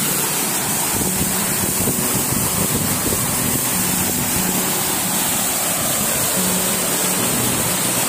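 Waterfall close up: a steady, loud rush of water pouring over rocks and through the shallows at its foot.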